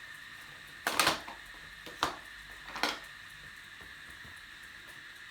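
Three short, sharp knocks and clacks of objects being handled, a second or so apart, over a faint steady high-pitched whine.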